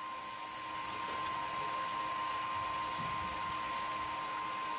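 Sparge water spraying from a copper sparge arm onto the grain bed in a mash tun, an even hiss of falling water, with a steady high-pitched whine over it.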